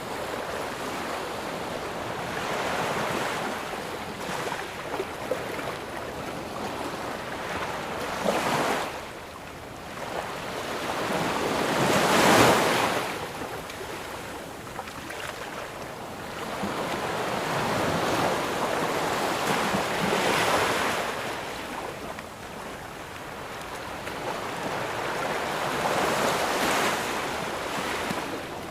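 Ocean waves breaking and washing up on a sandy beach, coming in surges every several seconds, the loudest about twelve seconds in.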